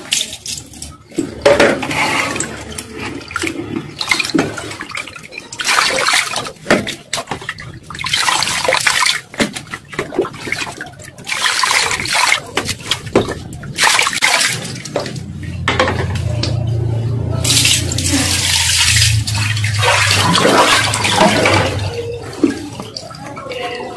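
Water splashing and sloshing in a plastic basin as hands rinse cut pompano pieces, in irregular bursts.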